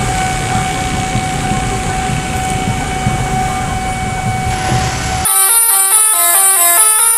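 Electric commuter train rumbling with one steady held tone above it. About five seconds in it cuts abruptly to a telolet musical horn playing a quick melody of stepping tones.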